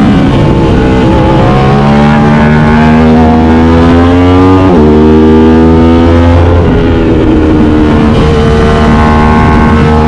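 Aprilia RS 660's parallel-twin engine through an SC Project CR-T exhaust, heard on board while riding. The revs climb for about three seconds and drop sharply at an upshift about five seconds in. They pull again, dip near seven seconds, and then hold steady.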